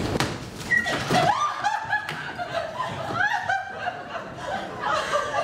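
Several young women laughing and giggling in high voices. A rushing hiss stops about a second in, just before the laughter starts.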